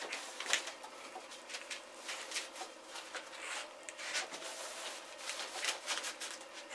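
Plastic sheeting crinkling and rustling in irregular crackles as a felt mat is spread and smoothed over it by hand.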